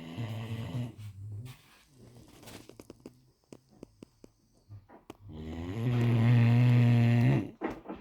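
Great Dane snoring in its sleep: a deep, pitched snore fading out in the first second and a half, soft clicks and puffs, then a louder snore about two seconds long near the end.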